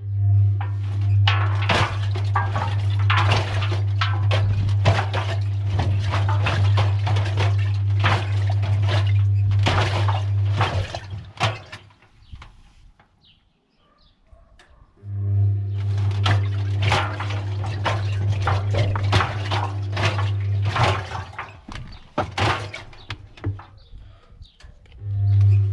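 Washing machine on a wash cycle: the motor hums as the drum turns for about eleven seconds, stops for a few seconds, then turns again and starts once more near the end. Cubes and balloons knock and clatter inside the tumbling drum, with water sloshing.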